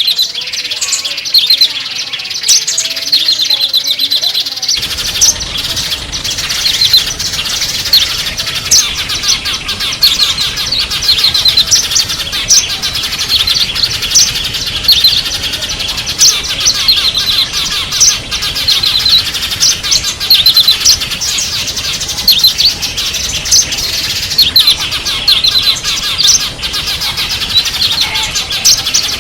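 Many small songbirds chirping and twittering rapidly and continuously, high-pitched calls overlapping densely. About five seconds in, a steady low background noise comes up under the chirping.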